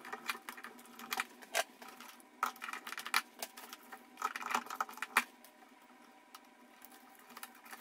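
Hands pulling the paper wrapping off the conductors of a freshly sheathed-back electrical cable and handling the wires in a metal box: irregular rustles and small sharp clicks, busy for about five seconds and then sparser.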